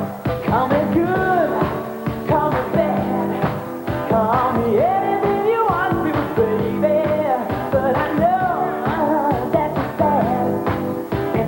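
A 1980s soul/R&B song playing: a lead vocal over a band with a steady drumbeat and held bass notes.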